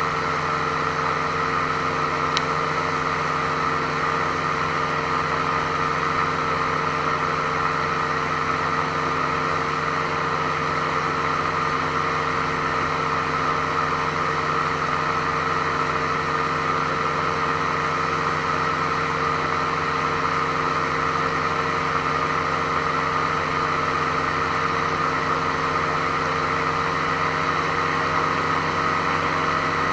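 Small aircraft's engine running steadily in flight, a constant drone that holds the same pitch throughout.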